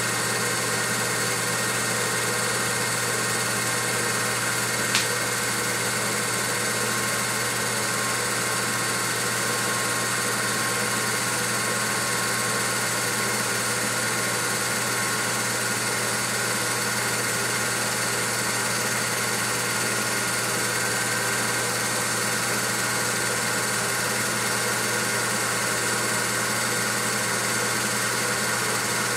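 Steady mechanical hum and hiss of a film projector's motor and fan running, with one faint click about five seconds in.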